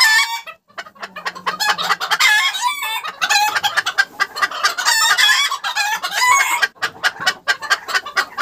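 Domestic chickens clucking and calling in a henhouse, many overlapping wavering calls with sharp clicky notes between them. A hen sits on a freshly laid egg in the nest.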